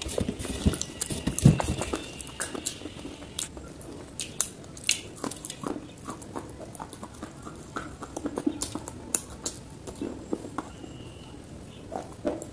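Close-miked biting and chewing of hard roasted clay, a stream of sharp crunching cracks, loudest and densest in the first two seconds with one big crack about a second and a half in, then sparser crunches as it is chewed.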